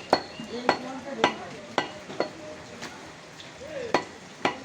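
Butcher's knife chopping beef on a chopping block: sharp strokes about twice a second, a pause of about a second and a half, then two more strokes near the end.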